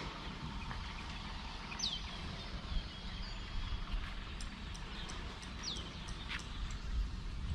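Outdoor ambience: a few short, separate bird chirps over a steady low rumble.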